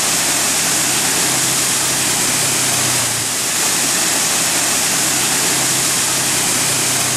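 A waterfall rushing: an even roar of falling water. A steady low engine hum sits underneath it.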